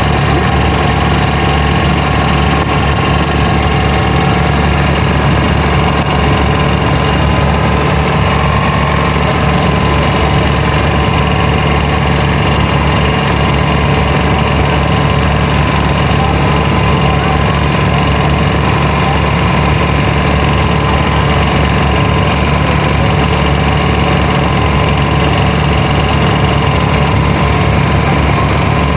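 A traditional dhow's inboard engine idling, with a steady, even low hum.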